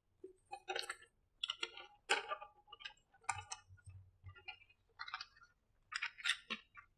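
Faint rustling of a large paper chart in a string of short crackles as it is unfolded and pressed flat against a whiteboard.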